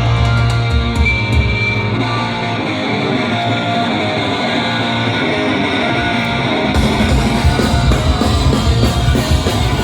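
Punk band playing live with no vocals: guitar, bass and drums. About two seconds in the bass and drums drop out and the guitar plays on alone, then the full band crashes back in about seven seconds in.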